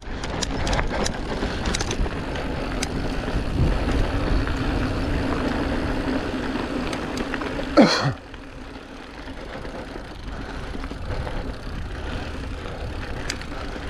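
Mountain bike being ridden on a dirt trail: tyre rumble, wind on the microphone and rattling clicks from the bike. A short sharp sound comes about eight seconds in, after which the noise is quieter.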